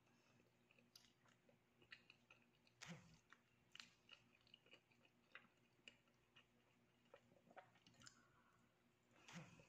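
Faint close-up chewing of a chicken sandwich: scattered soft mouth clicks and smacks, with louder ones about three seconds in and near the end.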